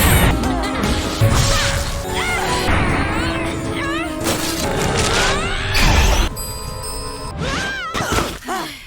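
A cartoon heroine's voice making a rapid string of short yells, gasps and effort grunts, edited back to back, over background music. Loud crashes and impacts land near the start and twice more in the middle.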